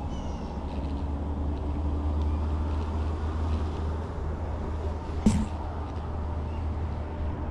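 Steady low rumble, with one sharp knock about five seconds in.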